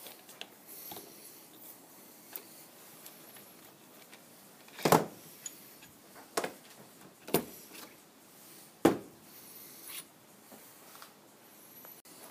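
Small steel parts clicking and clinking against a steel bearing housing as a hub and its bearing stack are taken apart by hand with a socket, with four sharp metallic knocks about halfway through and light clicks between.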